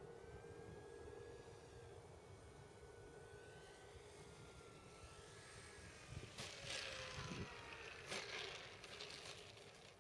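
Electric motor and propeller of a Dynam Hawker Hurricane RC plane whining faintly, the pitch slowly falling as it throttles back on approach. About six and eight seconds in, two rough rushing bursts come as it lands and runs through the grass.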